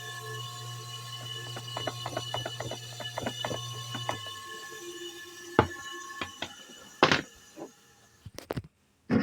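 Kawamoto N3-136SH well pump motor running with a steady hum, high whining tones and irregular rattling, which are the motor's abnormal noise, then switching off about four seconds in. A few sharp clicks or knocks follow.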